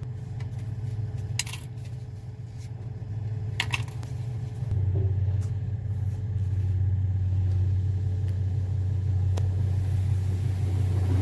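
Automatic tunnel car wash heard from inside the car: a steady low rumble of the machinery and spinning brushes working over the car, growing louder a little under halfway through. A couple of sharp clicks come in the first four seconds.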